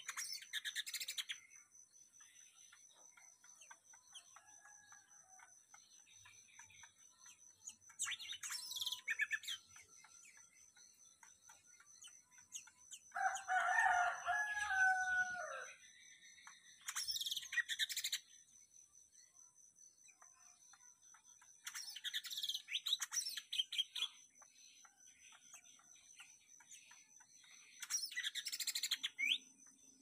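Caged cucak mini songbird singing short bursts of quick, high chirping song, about five phrases of one to two seconds each, a few seconds apart. About 13 seconds in, a louder, lower call from another bird rings for about two and a half seconds, falling in pitch at the end. A faint steady high insect tone runs beneath.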